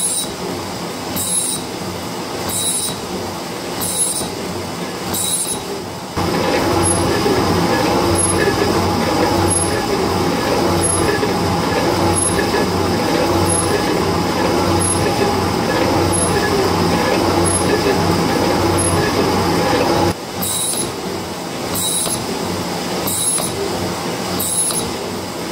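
Metal shaper cutting steel, its ram stroking about once every 1.2 seconds with a scrape of the tool on each cutting stroke; the chips are coming off blue, a heavy, hot cut. From about six seconds in until about twenty, the shaper's drive and rocker arm are heard close up, louder and fuller, with the same stroke rhythm ticking through.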